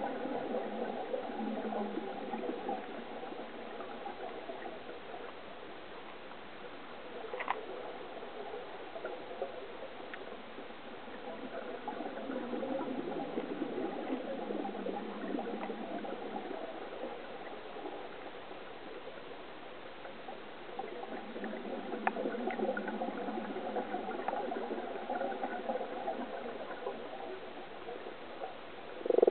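Underwater sound of a scuba diver's exhaled bubbles gurgling past the camera housing, swelling and fading in long spells with the breaths, with a few sharp clicks.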